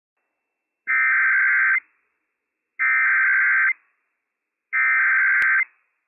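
Emergency Alert System SAME header from NOAA Weather Radio: three identical bursts of two-tone digital data, each just under a second long and about two seconds apart, encoding a Child Abduction Emergency (CAE) alert.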